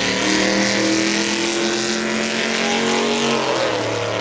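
Drag racing car's engine running hard at a steady high pitch, which drops about three and a half seconds in and settles lower.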